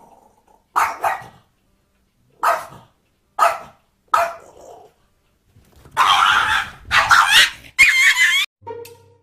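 Small dog yipping: single short, sharp yips about a second apart, then a louder run of longer barks and yelps near the end.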